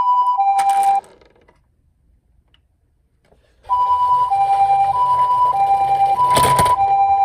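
Toy ambulance's electronic two-tone siren, alternating a high and a low note about every half second. It cuts off about a second in and starts again after a couple of seconds of quiet, with a short clatter near the end.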